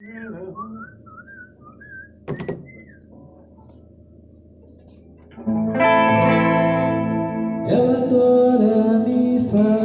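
Rock band starting a song in a small rehearsal room: after a few faint high gliding notes and a single knock, sustained guitar chords come in about five and a half seconds in, and the fuller band joins near the end.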